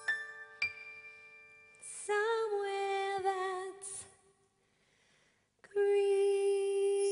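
Stage musical song with a woman's voice singing a long held note with vibrato, after a few soft chiming keyboard notes. The sound cuts out to silence for over a second, then a steady held note comes back in.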